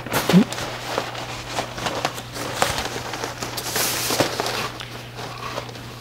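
Large sheets of heavy flip-chart paper rustling and crackling as they are turned over, with irregular sharp crackles, over a steady low hum.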